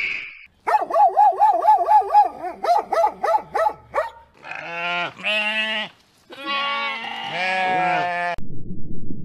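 A dog yelping rapidly, about five short high yelps a second for some three seconds, then a sheep bleating three times in long wavering calls.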